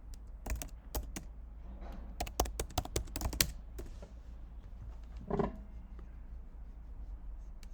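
Typing on a computer keyboard: a quick run of keystrokes for the first three seconds or so, then a short hum-like sound about five seconds in.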